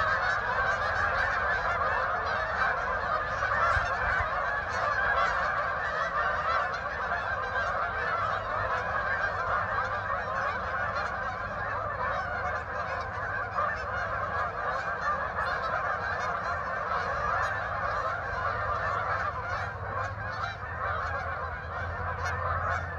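Hundreds of geese honking together in a dense, continuous chorus.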